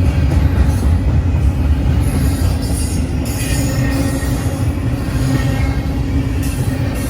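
CSX freight train rolling through a grade crossing: a loud, steady low rumble of cars passing close by, with high-pitched wheel squeals coming and going.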